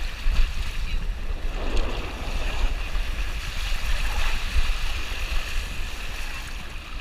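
Wind buffeting the microphone, a steady low rumble, over a constant rushing outdoor noise.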